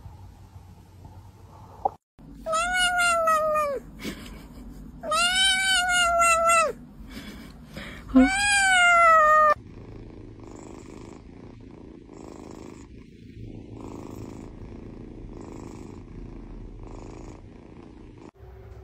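Domestic cat giving three long, loud meows about a second apart, then purring in a soft, even rhythm of about one pulse a second.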